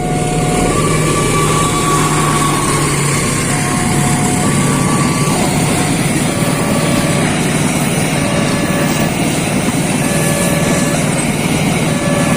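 A train rolling past at close range: a loud, steady rumble of wheels on the rails, with short ringing tones at changing pitches that come and go.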